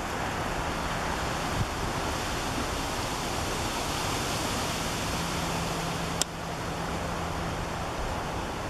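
Wind rushing steadily over the microphone, with a single sharp click a little past six seconds in.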